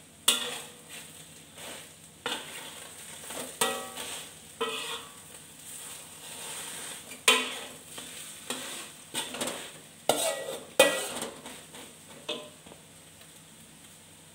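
Metal spatula scraping and clanking irregularly against a steel wok while stirring food frying in hot oil, with sizzling under the strokes. The stirring stops about two seconds before the end.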